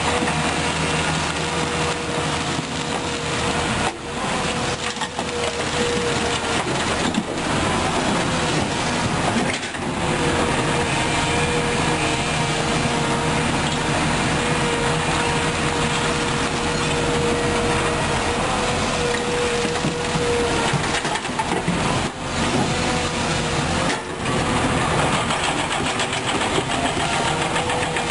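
Komatsu PC200-8 Hybrid excavator's diesel engine and hydraulics running under load as it digs into rock and soil, with a steady whine that drops out and returns a few times.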